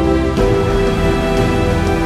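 Background music: a soundtrack of sustained instrumental notes, changing chord about half a second in.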